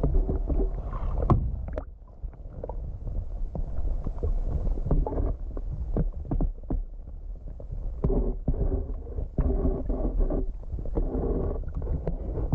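Muffled underwater sound from a camera submerged in shallow lake water as it is moved along the bottom: a steady low rumble of water against the housing, with scattered clicks and knocks and a few short muffled pitched patches in the second half.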